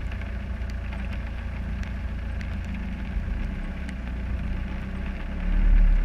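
Land Rover Discovery 300Tdi's 2.5-litre four-cylinder turbodiesel running at low revs as the truck crawls over muddy ground, a steady low hum that grows louder about five and a half seconds in.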